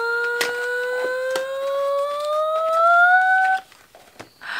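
A woman's long drawn-out vocal "ooh", held on one voice and sliding slowly upward in pitch, breaking off about three and a half seconds in. Light clicks and a brief rustle of the small gift box being handled.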